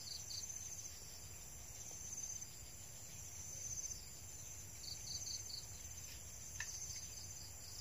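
Faint chorus of night insects, with crickets trilling in steady high pulses. Two short runs of quick chirps come near the start and about five seconds in.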